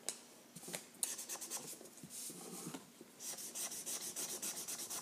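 Marker tip scribbling quickly back and forth on paper, colouring in a square, with a few sharp clicks in the first second; the strokes grow faster and louder in the last two seconds, about ten a second.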